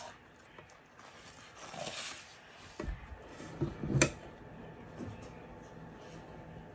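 Hands rummaging in a clear plastic box and unpacking it: a soft rustle about two seconds in, then a few knocks and one sharp click about four seconds in.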